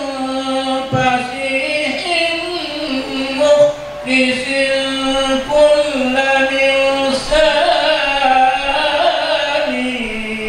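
Solo voice chanting Arabic devotional verses (marhaban shalawat), with long held notes and ornamented turns between them.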